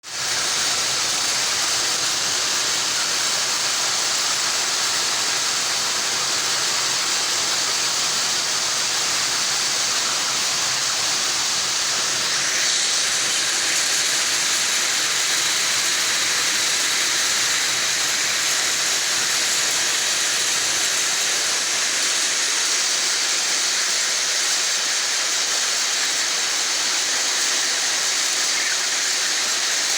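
Steady rushing hiss of a broiler-house ambience, even throughout, with a slight shift in its tone about twelve seconds in.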